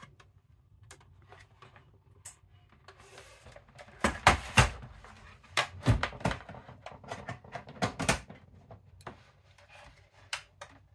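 Irregular clicks and knocks from handling an opened VHS video recorder's plastic case and chassis, coming in several quick clusters from about four to eight seconds in, with a few lone clicks before and after.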